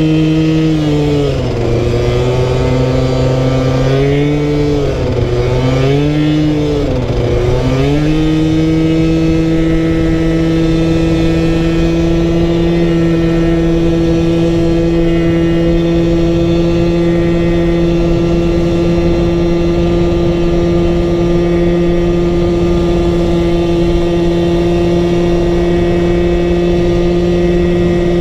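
86cc big-bore scooter engine running hard on a road test. Its pitch drops and recovers three or four times in the first eight seconds, then holds steady at high revs. Wind buffets the microphone throughout.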